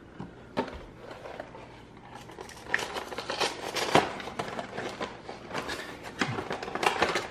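Rustling and crinkling of a cardboard-and-plastic blister box of Pokémon cards being handled and opened, with scattered sharp clicks, the clearest about four and six seconds in.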